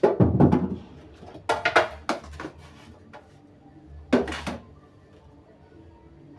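Kitchen clatter as bowls and produce are handled at a sink: three bursts of knocking, the loudest right at the start, another about a second and a half in, and a last one about four seconds in.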